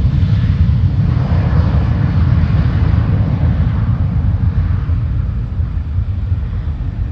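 Jet aircraft taking off, a loud low rumble of its engines with a hissing roar above it that eases off over the last few seconds as the plane climbs away.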